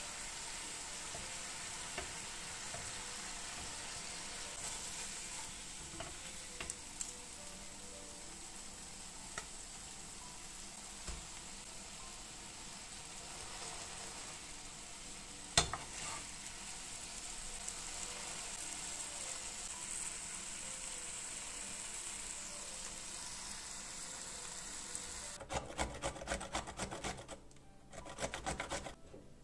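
Smash burger patties sizzling steadily on a hot griddle, with one sharp knock about halfway through. Near the end the sizzle stops and a quick, even run of scraping strokes follows: pickles being grated on a metal hand grater.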